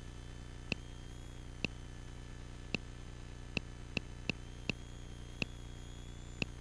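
Nine short, sharp clicks at uneven intervals over the steady low hum of a jet cockpit in flight.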